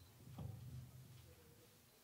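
Near silence: faint room tone with a low rumble and one soft knock about half a second in.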